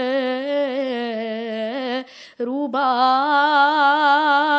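An 11-year-old boy singing solo, holding a long ornamented note with vibrato on one vowel. He breaks off briefly for a breath about two seconds in, then comes back in louder.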